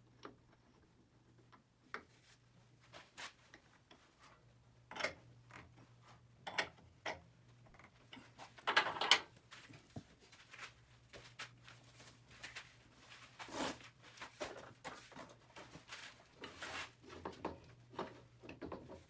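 Scattered clicks, knocks and clunks of metal and wood as a square maple blank is clamped in a metal four-jaw lathe chuck with its T-handle chuck key and the tool rest is set in place, with a louder rattling clatter about nine seconds in. A faint steady low hum runs underneath.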